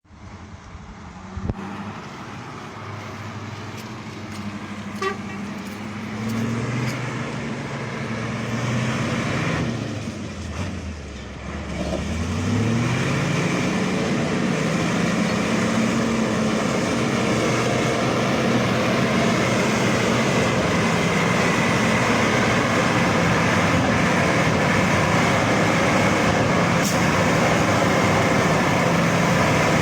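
An off-road vehicle's engine revving up and down during the first dozen seconds, then climbing and running hard at steady high revs.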